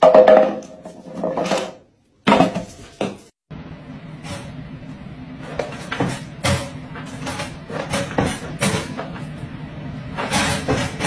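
A corgi barks a few times. Then, from about three and a half seconds in, comes a run of knocks and rattles: the wire door of a plastic pet crate clanking as the dog inside pushes against it.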